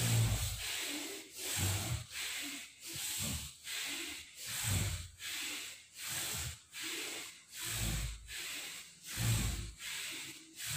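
A man breathing hard and rhythmically through the nose, in and out about every two-thirds of a second, in time with side-to-side torso twists. Low thumps come every second or two.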